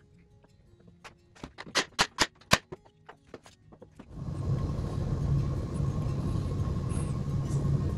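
A series of sharp wooden clicks and knocks from small pine blocks being handled and set against the bench base, the loudest about two seconds in, over faint background music. About four seconds in, a steady louder hum and hiss takes over.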